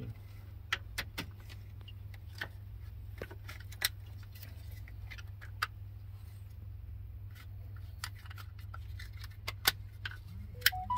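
Irregular plastic clicks and rattles as a large multi-pin automotive wiring connector is handled and pushed into place, with the sharpest clicks near the end, over a steady low hum.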